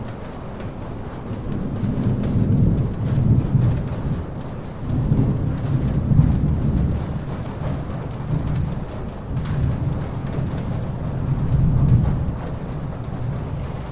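Steady rain with thunder rolling in low rumbles that swell and fade in waves, loudest about two to three, six and twelve seconds in.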